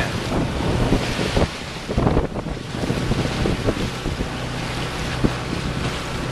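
Wind buffeting the microphone and sea water rushing past a sailboat's hull under way, over a steady low hum from the boat's engine as it motors.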